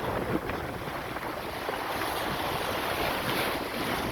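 Wind buffeting the microphone over the steady rush of water along the hull of a sailing yacht under way.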